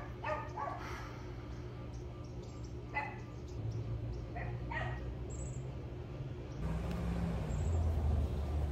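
A puppy, taken for a Jack Russell terrier, barking in short, high yaps: once about half a second in, again near three seconds, and twice more between four and five seconds. A low rumble rises in the last two seconds.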